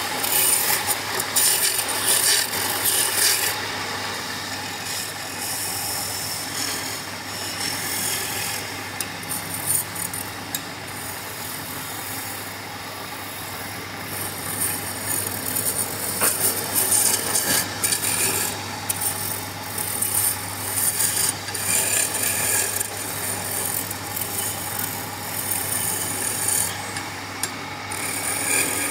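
Wood on a running lathe being cut with a turning tool: a continuous rasping scrape that swells and eases, over the lathe's steady motor hum.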